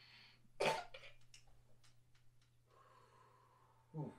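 A man finishing a draw through a portable electric dab rig's glass mouthpiece, a faint airy hiss, then a sudden loud exhale about half a second in, followed by quieter breathing and a brief low vocal sound near the end.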